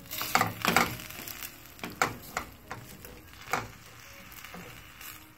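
A spatula stirring and scraping sliced vegetables in a frying pan of hot vinegar and oil, with a light sizzle underneath. Irregular scrapes and knocks thin out after about three and a half seconds, leaving the faint sizzle.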